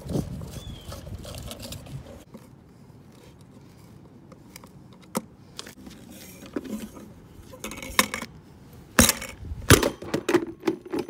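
Scraping and clattering as the plastic pole of an old floor-fan base is twisted and worked loose, then several sharp knocks, the loudest two close together near the end.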